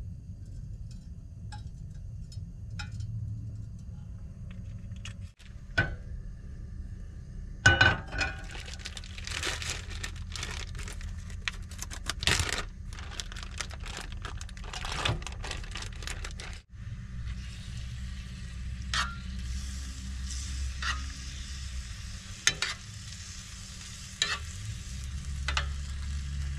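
Teriyaki-marinated steak pieces tipped into a hot oiled nonstick frying pan, frying and sizzling, with a spoon stirring and clicking against the pan. The first few seconds are quieter, with a low steady hum and a few light clicks; about a third of the way in a loud hit starts the sizzling.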